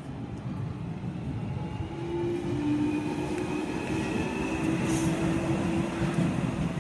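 London Underground Jubilee line 1996-stock train pulling out of the platform. Wheels rumble on the rails, growing louder about two seconds in, with a steady motor whine over it for a few seconds.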